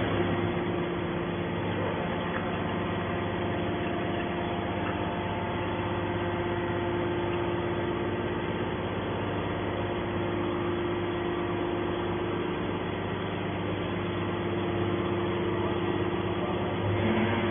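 Hydraulic scrap metal baler running, a steady even hum from its motor and hydraulic pump.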